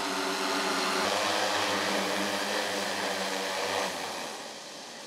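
DJI MG-1P agricultural spraying octocopters, their rotors humming and buzzing steadily in flight; the sound fades away near the end.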